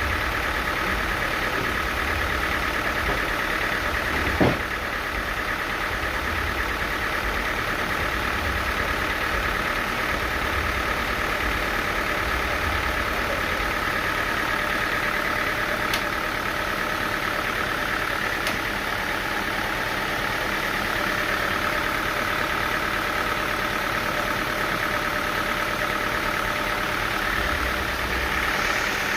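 Sawmill machinery running steadily with an even mechanical drone, and one sharp knock about four and a half seconds in.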